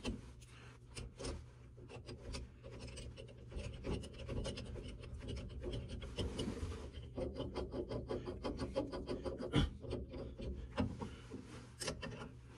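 Small metal parts of a steering wheel puller being handled, with bolts fitted and threaded into the puller plate: light metal clicks and rubbing, coming fastest in a run of several clicks a second about halfway through.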